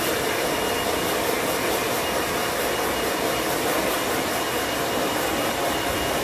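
An electric fan-motor appliance running steadily, with a loud rush of air and a faint steady high whine.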